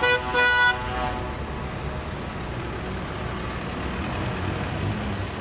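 Two short vehicle horn blasts, then the low, steady rumble of tractor engines as a tractor convoy drives slowly past.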